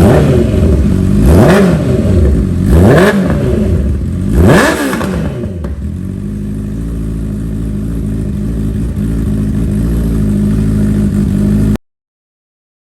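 Honda CB1000R's inline-four engine through an Akrapovič full exhaust, revved in quick throttle blips about a second and a half apart, then settling to a steady idle. The sound cuts off suddenly near the end.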